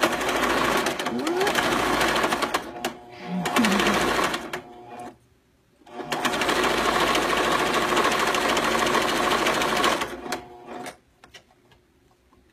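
Domestic electric sewing machine stitching a zigzag seam through terry towelling. It runs in bursts: about five seconds with a brief dip, a stop of under a second, then another four-second run that ends about ten seconds in, followed by a couple of short spurts.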